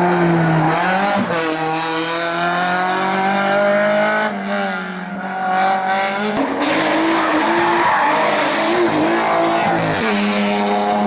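Competition car engine revving hard up the hill. Its note climbs and drops sharply at each gear change, about four shifts, and wavers on and off the throttle partway through.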